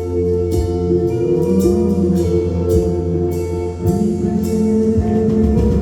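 Worship band playing an instrumental song intro: sustained keyboard chords and bass notes under percussion hits at a steady beat.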